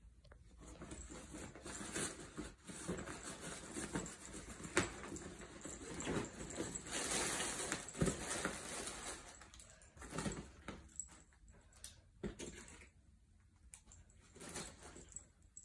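A fabric cat tunnel rustling, with scattered light scratches and taps, as a kitten scrambles and bats at a wand toy inside it. It goes quiet for a moment near the end.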